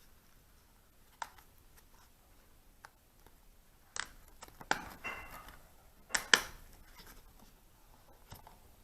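Hands handling small objects: scattered sharp clicks and taps, with a brief rustle about five seconds in and the two loudest clicks just after six seconds.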